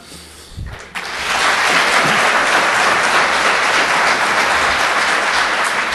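Audience applauding, the clapping starting about a second in and easing slightly toward the end.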